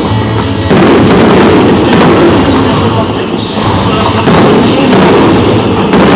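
Fireworks display: aerial shells bursting with sharp bangs, about six of them, spaced a second or so apart.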